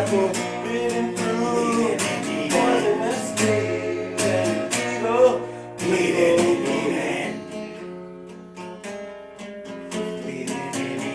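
Acoustic guitar strummed steadily, with a voice singing over it for the first several seconds; from about seven seconds in the guitar carries on alone, quieter.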